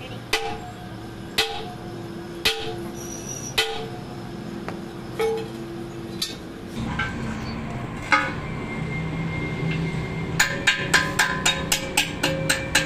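Hammer blows on the steel rear axle housing of a truck, a series of separate strikes each followed by a brief metallic ring, then from about ten seconds in a fast run of lighter taps, about three or four a second.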